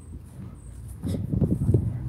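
Low rumbling and buffeting on a handheld camera's microphone outdoors, getting louder about a second in.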